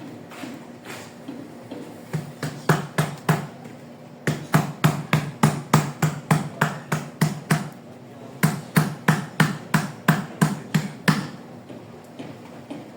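Hammer blows on tile, about four a second, in three runs broken by short pauses.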